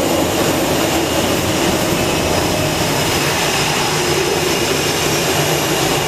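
Steady jet engine noise from an F/A-18 running on a carrier's steam catapult ahead of launch.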